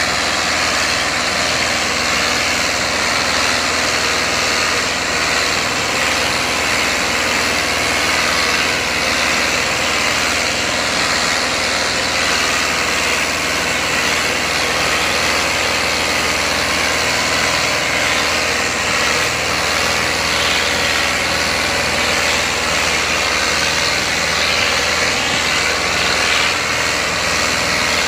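Diesel engines of a New Holland Dabung 85 (four-cylinder) and a Ford 4610 (three-cylinder) tractor running steadily and loudly under load, hauling a fully loaded sugarcane trolley.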